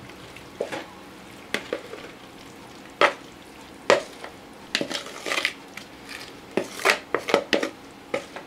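A wooden spatula scraping and knocking against a plastic bowl as vegetable and mushroom filling is pushed out into a pie tin: irregular scrapes and taps, the sharpest about three and four seconds in.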